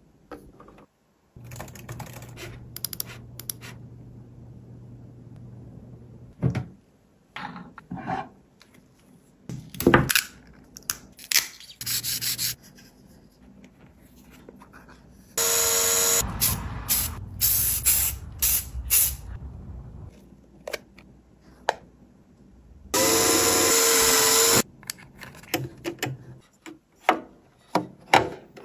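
Small plastic parts of a scale RC truck accessory being handled and clicked into place, with rubbing and sharp clicks throughout. Twice, about halfway and again near the end, there is a louder hissing burst of a few seconds with a pitched tone running through it.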